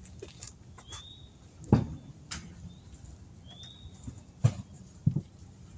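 Tools clunking as they are handled and set down, four sharp knocks, with a short high chirp, like a small bird's call, repeating twice.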